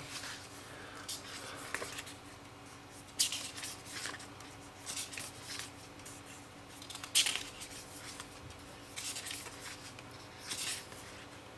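Pages of a hardback book being turned one after another: a string of short paper rustles and flicks, roughly one every second.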